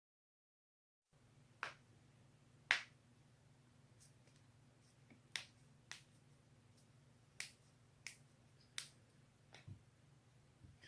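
Human joints being cracked: a series of sharp, separate pops at uneven intervals, starting about a second in, the loudest near three seconds in, over a faint steady hum.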